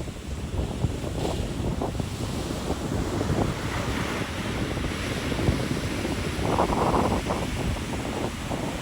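Ocean surf washing and rushing steadily while wind buffets the microphone with a constant low rumble. A louder rush comes about two-thirds of the way through.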